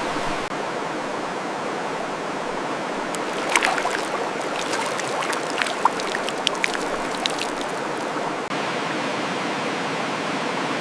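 Steady rushing of running water, with a scattering of light ticks and taps from about three and a half to seven and a half seconds in.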